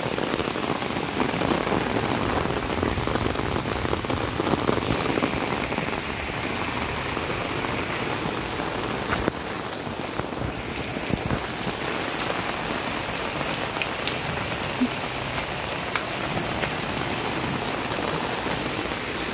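Steady heavy rain falling on a concrete path and the surrounding plants.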